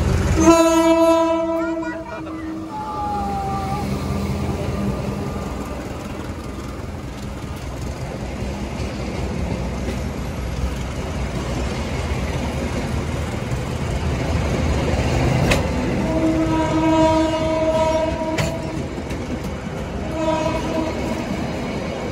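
Diesel locomotive horn sounds a loud blast as the train arrives, then the passenger coaches roll past close by with a steady rumble. The horn sounds twice more near the end, a longer blast and then a short one.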